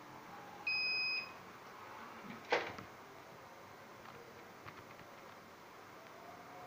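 A KY-012 active buzzer gives a single high-pitched beep about half a second long, a little under a second in. About two and a half seconds in there is one sharp click, the CD-tray door shutting as the door-open period ends.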